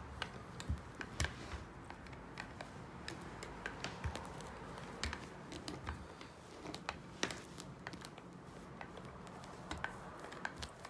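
Adhesive lint roller being rolled over a cat's fur, giving irregular sticky crackling clicks and taps.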